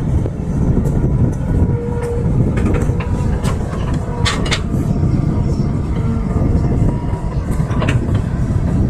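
Excavator's diesel engine running under load with a steady low rumble and a faint whine, broken by a few sharp metallic clanks.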